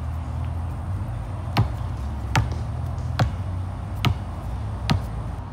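Basketball dribbled on a concrete sidewalk: five bounces at an even pace, a little under one a second.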